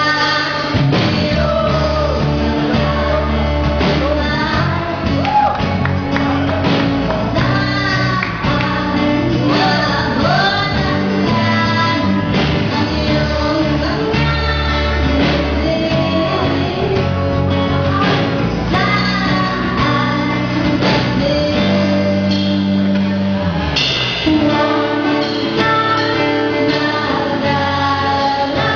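A woman singing into a microphone with a live amplified band: guitar, keyboard and drums, with sustained low bass notes under the melody.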